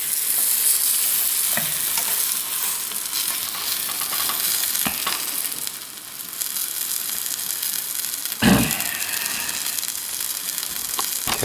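A quesadilla frying in butter in a hot pan, a steady high sizzle just after it has been flipped. There are a few faint clicks, and one brief, louder knock about eight and a half seconds in.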